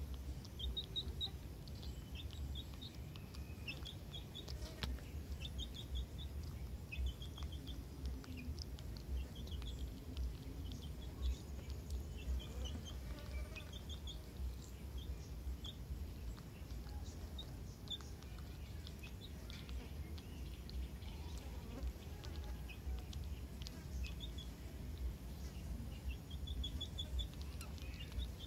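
Small birds chirping in short runs of three or four quick, high notes, repeating every second or two over a steady low rumble.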